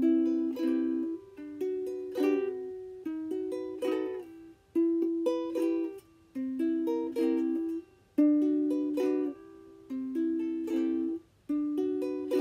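Ukulele strummed in a simple chord pattern, each chord ringing out and fading, with brief pauses between phrases.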